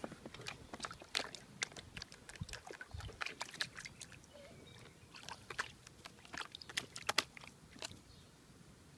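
A bulldog puppy pawing at shallow water in a clear plastic tub: irregular splashes and slaps in two busy spells, with a short lull about four seconds in.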